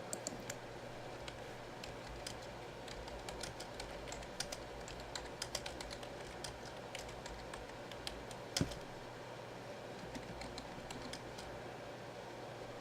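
Typing on a computer keyboard: irregular, quick key clicks in small runs, with one louder knock about eight and a half seconds in.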